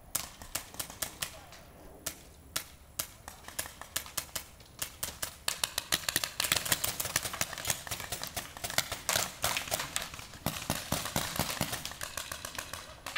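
Paintball markers firing: scattered sharp pops at first, then about halfway through a dense rapid string of shots, several a second, for several seconds.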